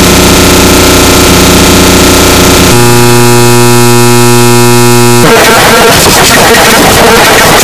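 Loud, heavily distorted noise at full volume. A harsh dense buzz changes about three seconds in to a steady, low pitched buzz with a stack of overtones. About five seconds in, that buzz cuts off sharply into harsh crackling noise.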